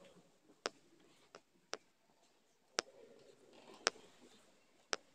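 A series of sharp clicks, six of them, mostly about a second apart, over faint room noise.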